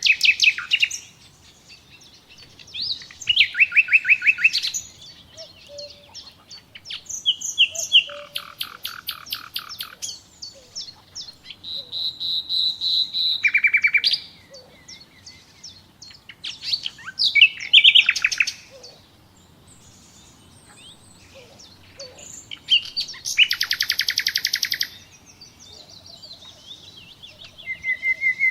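Songbird singing: short, varied phrases of rapid repeated chirps and trills, a new phrase every two to three seconds with brief pauses between.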